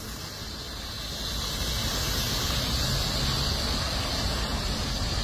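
Pickup truck with a brine-spraying tank driving slowly past on wet pavement. A low engine rumble sits under a steady hiss of water on the pavement, and both grow louder over the first two seconds as the truck comes closer.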